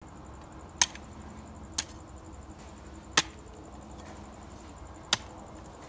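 A long-handled hoe with a metal blade chopping into clumpy garden soil: four sharp strikes at uneven intervals of one to two seconds.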